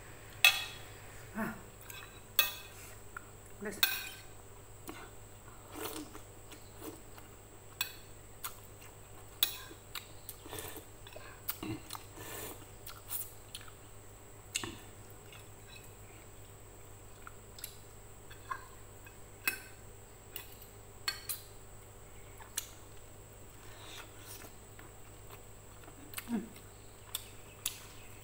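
Metal spoon and fork clinking and scraping against a ceramic plate in short, irregular strikes while a person eats soup with noodles. Soft mouth sounds of eating come in between.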